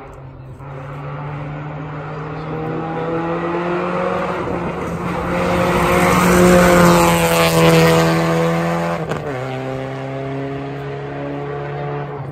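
Rally car driving past at speed. The engine note holds steady as it grows louder, with a loud rush of tyre noise on the loose stage surface at the peak. About nine seconds in the pitch drops sharply as the car passes, and the engine runs on at the lower pitch as it moves away.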